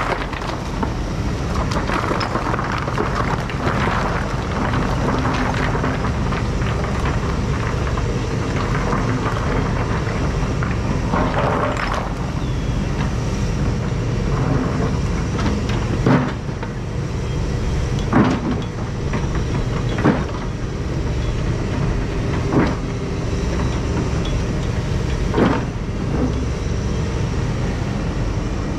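Takeuchi compact excavator's diesel engine running steadily as it digs out riprap rock. In the second half, five sharp clanks from the bucket and rock ring out, two to three seconds apart.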